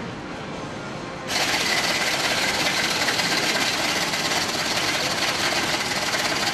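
Electric shaved-ice machine grinding ice: a steady grinding noise that starts suddenly about a second in while a hand presses down on the top of the machine.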